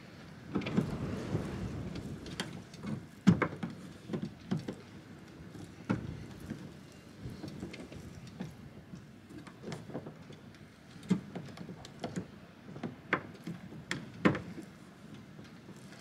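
Irregular clicks, knocks and rattles of plastic and metal parts inside a Fiat 500's door shell as a replacement door handle is worked into place by hand, with a louder knock about three seconds in.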